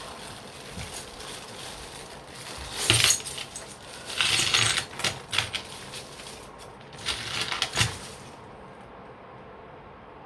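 A small box of jewellery-making supplies being opened and gone through by hand: three bursts of rustling and light clinking of small metal pieces, the loudest about three seconds in.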